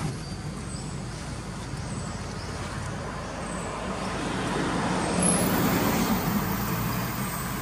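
Road traffic noise, growing louder for a couple of seconds past the middle as a vehicle passes.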